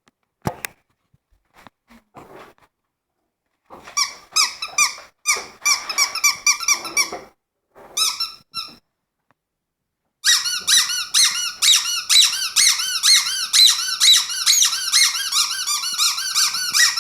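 A squeaky dog toy being chewed by a dog. It squeaks in short quick runs, then squeaks fast and without a break from a little past halfway.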